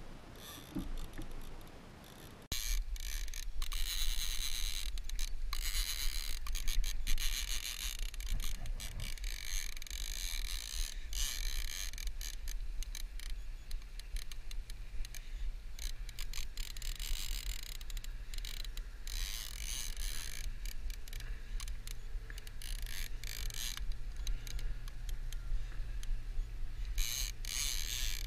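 Fishing reel clicking rapidly and continuously under the load of a hooked Samson fish on a bent rod, over a steady low hum. It starts abruptly about two and a half seconds in.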